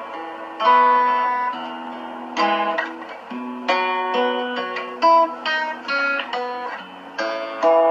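Acoustic guitar played by hand: plucked single notes and strummed chords ring out one after another, with a new chord struck every second or so. Picked up by a phone's microphone, so the sound is thin in the bass.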